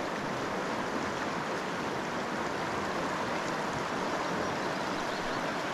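Fast-flowing river current, a steady rush of water.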